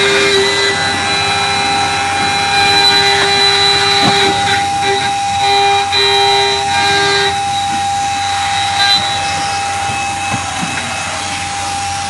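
CNC milling machine spindle running with an end mill cutting a metal bar: a steady whine of several tones over cutting noise. The lower hum breaks up about halfway through and fades out, while the higher tones carry on.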